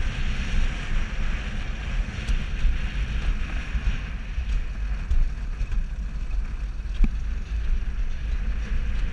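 Alpine coaster sled running fast down its steel tube track: a steady rumble from the wheels on the rails, with wind buffeting the microphone. A single sharp click comes late on.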